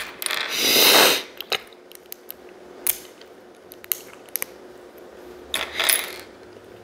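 Small plastic LEGO bricks clicking and clattering as they are handled and pressed together, a scattering of sharp light clicks. There are two short hissing sounds, one about a second in and one near the end.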